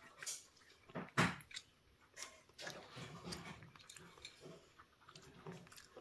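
A cat eating soft wet food from a bowl: irregular wet smacking and chewing clicks, the loudest a little after a second in.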